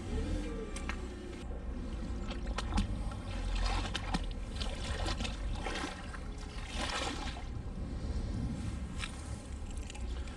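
Canal water sloshing and trickling as a magnet-fishing magnet and its rope are worked through the water, with scattered small clicks and knocks and a couple of louder splashy swells about four and seven seconds in.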